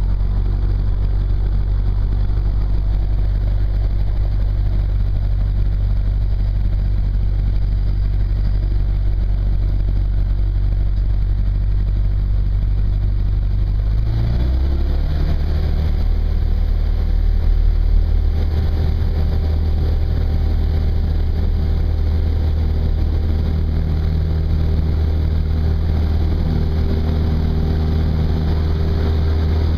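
Single-engine light airplane's piston engine and propeller heard from inside the cockpit, running at low taxi power. About halfway through the engine speed rises a step and then holds steady at a higher pitch.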